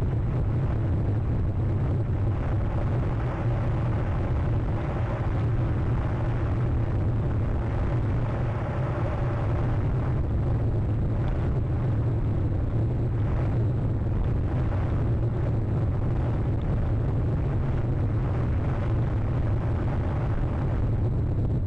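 Steady low rumbling noise of wind and surf on an outdoor webcam microphone.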